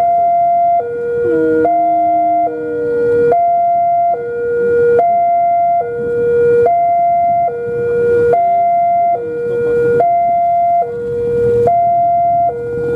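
A two-tone electronic warning alarm sounding steadily, switching back and forth between a high and a low pitch about every 0.8 seconds.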